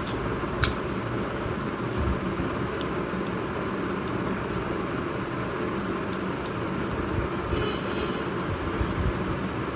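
Steady, even background noise of a room, with one sharp click just after the start and faint sounds of a woman eating rice by hand.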